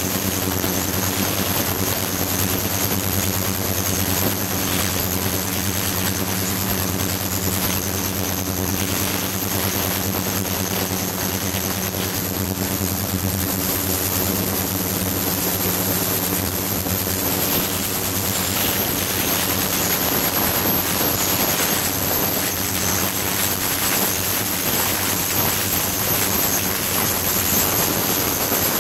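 Ultrasonic cleaning tank running steadily with a glass vessel standing in its water: a low hum under high whining tones and a hiss of cavitating water.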